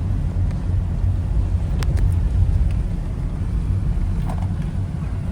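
Steady low road and engine rumble of a car driving, heard from inside the cabin, with a couple of faint ticks about two seconds in.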